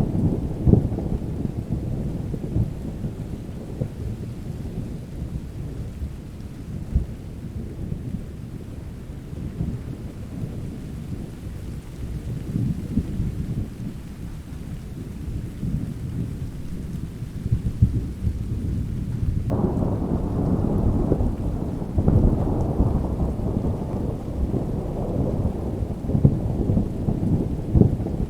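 Rain with continuous rolling thunder, a deep rumble that swells and fades. About two-thirds of the way in the rumble suddenly grows louder and fuller.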